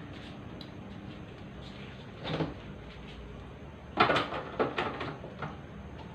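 A few sharp knocks and clatters in a kitchen, one about two seconds in and a quick run of them around four to five seconds in, over a steady low background noise.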